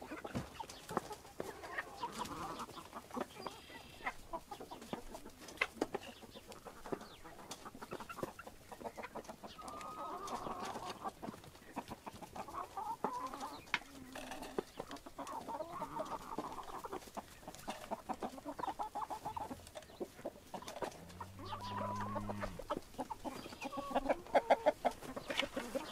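A flock of hens clucking continually as they feed, with many scattered sharp clicks among the calls. Near the end there is a short low hum.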